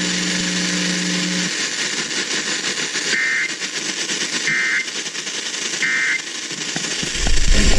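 Radio static hiss with three short two-tone EAS digital data bursts, about a second and a half apart: the brief end-of-message code that closes an Emergency Alert System warning. A low steady hum stops about a second and a half in, and a low rumble comes in near the end just before the sound cuts off.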